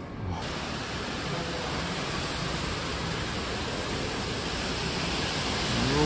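Steady roar of Fukuroda Falls, the hiss of a large waterfall, starting abruptly about half a second in and slowly growing louder.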